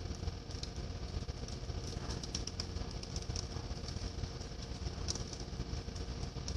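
Steady low drone of a ship's engine machinery, with faint scattered clicks over it.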